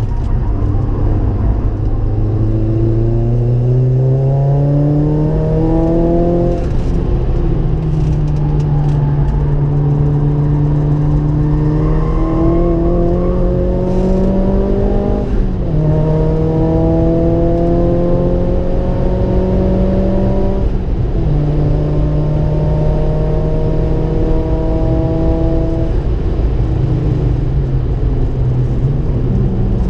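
Ford Focus RS engine heard from inside the cabin, accelerating hard on track. Its note rises through the revs with upshifts about six and fifteen seconds in, then holds a steadier pitch and drops as the driver eases off near the end, under tyre and road noise.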